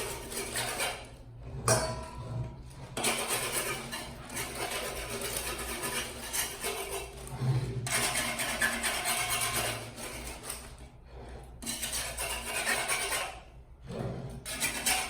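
Kitchenware being handled and scrubbed in a kitchen clean-up: long noisy stretches of clattering and scrubbing broken by a few short pauses.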